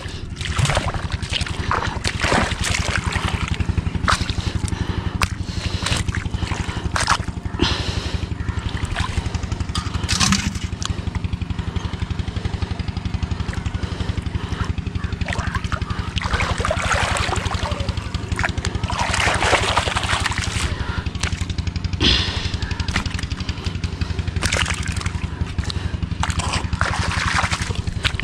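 Hands splashing and sloshing in shallow muddy water while feeling for pearl spot fish, with irregular splashes throughout. A steady low drone runs underneath.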